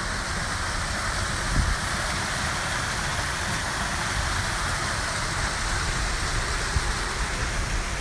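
Small waterfall cascading down a stone wall into the river: a steady splash of falling water.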